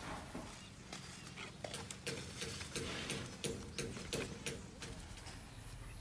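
Cucumber vines and leaves rustling, with irregular small clicks and snaps as cucumbers are picked by hand.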